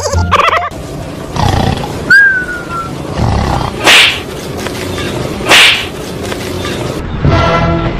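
Animal growling and roaring in several short, loud bursts. The two loudest come about four and five and a half seconds in, with a brief falling squeal-like tone about two seconds in.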